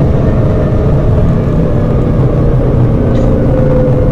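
Twin-turbo Lamborghini Gallardo V10 heard from inside the cabin while driving: a loud, steady drone with a tone that drifts slowly down in pitch.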